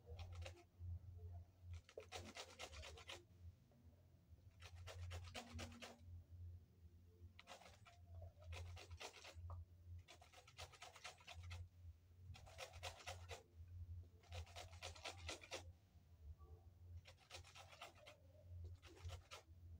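Small handheld grater rasping over lemon peel, zesting the lemon: short runs of quick scraping strokes about every two seconds, faint.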